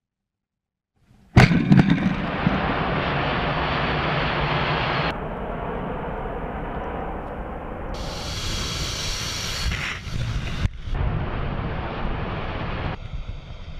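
Steady roar of jet transport aircraft engines and rushing wind. It starts suddenly about a second in after silence and changes abruptly in character several times, with a stretch of brighter hiss near the middle.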